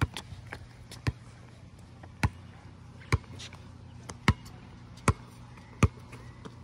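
Basketball dribbled on a concrete court: sharp single bounces, about one a second, six or seven in all.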